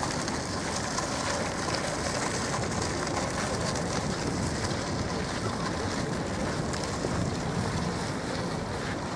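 Steady outdoor ambience: wind buffeting the microphone as a low, unsteady rumble over a constant hiss of distant traffic.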